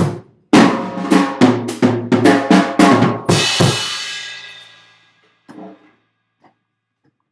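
Drum kit played in a quick run of drum strikes, finishing on a cymbal crash that rings out and fades over about two seconds. A few faint light knocks follow.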